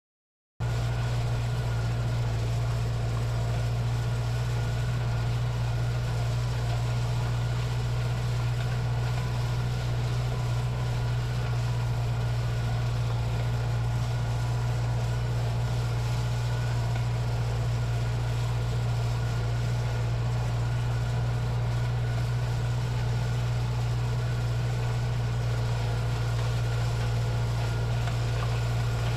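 Tractor engine running at a steady speed, a constant deep drone that cuts in abruptly about half a second in.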